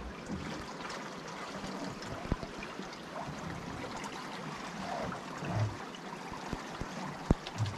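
Water of a strong tidal current rushing past a sailboat's hull, sounding like a small river or stream running. A couple of sharp knocks stand out, one about two seconds in and one near the end.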